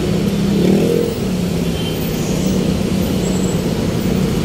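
A motor vehicle engine running with a steady low hum, over street traffic noise.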